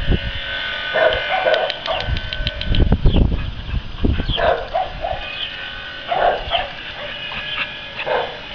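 A dog barking in short single barks, a few close together in the first two seconds and again midway and near the end, with a low rumble on the microphone about three seconds in.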